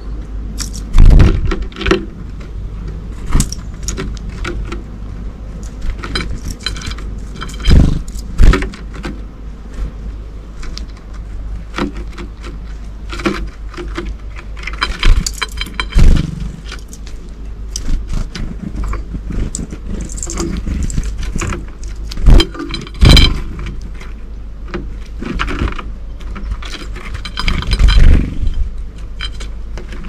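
Great tits and blue tits landing at a plate of pine nuts close to the microphone: irregular wing flutters, pecks and clicks, with several loud ones near the start, at about a quarter and a half of the way, and near the end.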